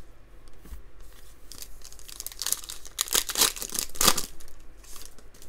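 A 2020 Donruss Optic football card pack's wrapper being torn open and crinkled: a run of rips and crinkles, loudest about three to four seconds in.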